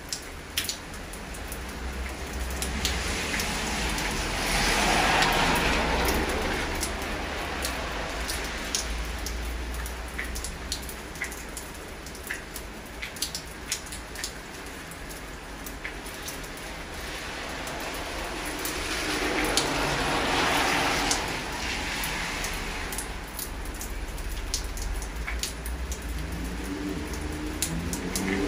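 Steady rain falling, with scattered sharp drips. The hiss swells louder and fades away twice, about five and twenty seconds in.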